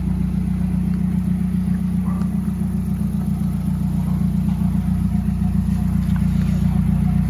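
Car engine running steadily, a constant low hum without changes in pitch.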